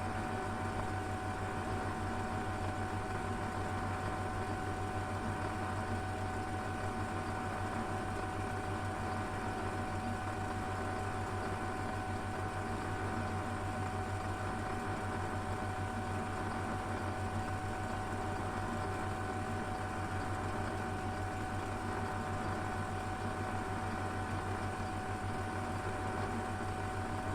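Small metal lathe running steadily at about 620 RPM while drilling brass stock for a clock bushing: a constant whine over a low hum.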